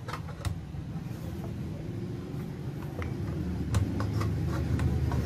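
A steady low rumble that grows louder about three and a half seconds in, with a few light plastic clicks from the track saw's plunge and depth-stop parts being handled.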